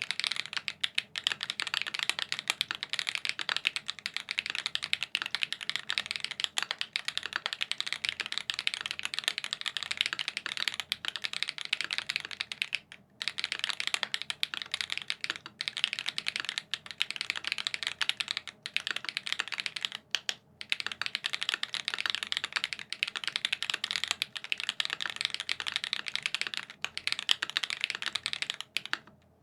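Fast, continuous typing on a custom tenkeyless mechanical keyboard with lubed tactile switches (SWK X OUTVA Black) on a PVC plate, under GMK keycaps. It gives a dense run of soft keystroke clacks, broken by brief pauses about 13 and 20 seconds in and just before the end.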